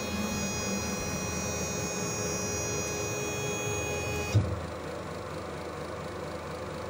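Stepper motors of a small desktop CNC mill driving the table along the Y axis at a steady jog speed: a steady whine of several high tones that stops with a short knock about four and a half seconds in, over the lower hum of the running spindle.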